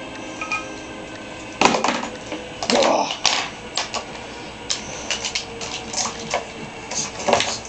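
Plastic action figures and toy props knocking and clattering on a wooden tabletop as they are moved by hand: an irregular string of clicks and knocks, several in quick succession.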